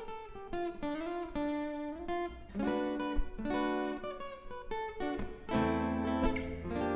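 Background music: acoustic guitar strummed in a steady rhythm, with some sliding notes.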